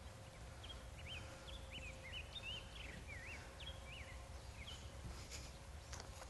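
Faint outdoor ambience: a steady low rumble with a small songbird's quick, high chirping notes through the first four seconds or so.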